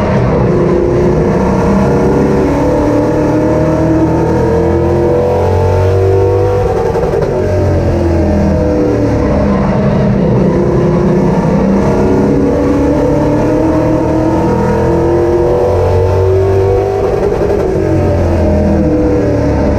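Superstock race car engines running at racing speed, the engine note rising and falling over and over.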